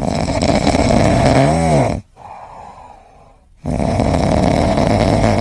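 Loud snoring: two long snores of about two seconds each, with a quieter breath between. A brief rising-and-falling pitched note sounds within the first snore.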